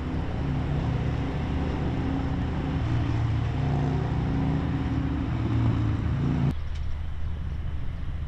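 A motor vehicle's engine running steadily with a low hum that wavers slightly in pitch, cutting off suddenly about six and a half seconds in and leaving quieter outdoor wind ambience.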